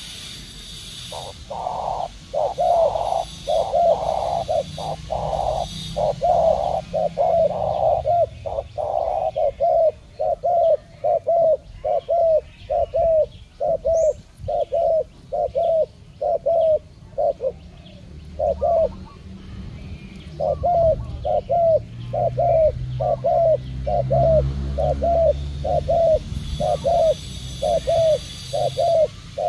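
Spotted doves cooing: a long series of short coos, about two a second, pausing briefly about two-thirds in before starting again.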